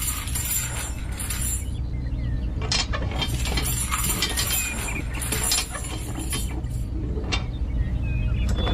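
Miniature construction machine running with a steady low hum, over scraping and hissing with scattered clinks.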